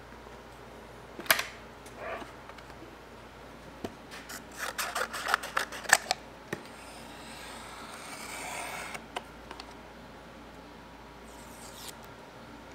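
Brass catches of a wooden briefcase clicking open about a second in. Then a quick run of clicks and knocks as a matchbox and a pair of scissors are handled over the case's plywood tray, and a soft scraping rustle.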